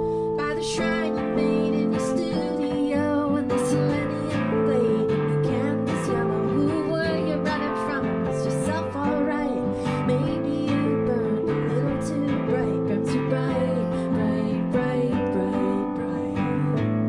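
Live duo music: a capoed acoustic guitar being picked and strummed over held chords from a Nord Electro 2 keyboard, playing steadily throughout.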